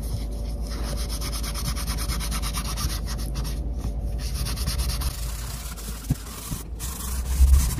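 Acetone-soaked cotton rubbed quickly back and forth against a sneaker's white rubber midsole, a steady scrubbing that eases off after about five seconds.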